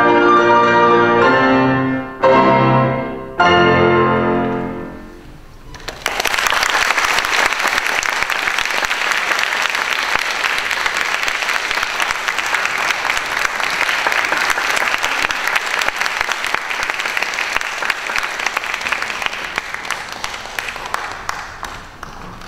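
Two grand pianos playing the closing chords of a piece, the last two struck about two and three and a half seconds in and left to ring out. Then an audience applauds steadily, fading near the end.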